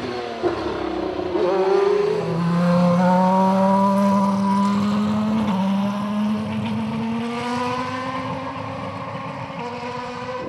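Ferrari Formula 1 car engine at high revs: its pitch drops about two seconds in, then climbs slowly and steadily for several seconds, with a short dip about halfway through.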